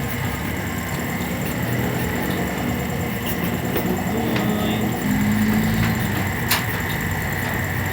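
Motor vehicle engines running steadily, with a sharp click about six and a half seconds in.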